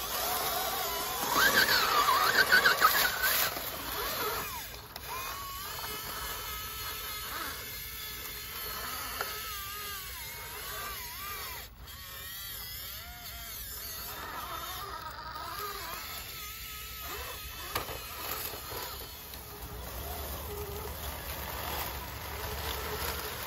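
Electric whine of an Axial SCX10 Pro RC crawler's Fusion Pro 2300kv brushless motor, gliding up and down in pitch as the throttle changes. It is loudest in the first few seconds.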